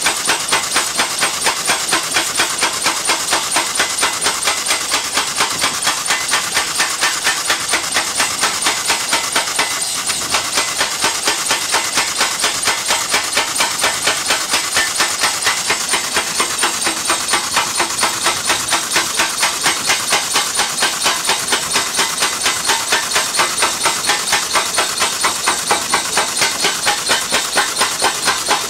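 BSP 700 pneumatic (air-driven) piling hammer backdriving a steel sheet pile: a rapid, even train of hammer blows, several a second, with a hiss of exhaust air on each stroke.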